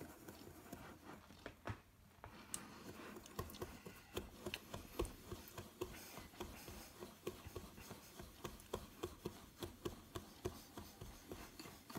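Wire whisk stirring dry salt and spice powders in a bowl: faint scratchy rubbing through the grains with many quick, light ticks of the wires against the bowl. There is a brief lull about two seconds in.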